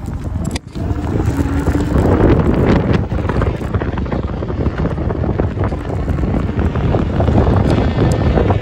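Wind buffeting the microphone of a camera mounted on a moving electric scooter: a steady, loud rush of noise that briefly drops out about half a second in.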